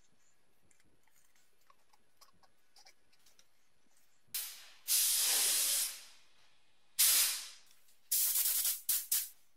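Gravity-feed paint spray gun spraying high-build primer in trigger pulls. After a few quiet seconds of small handling clicks, it hisses in a burst of about a second, then a shorter blast that trails off, then several quick short bursts near the end.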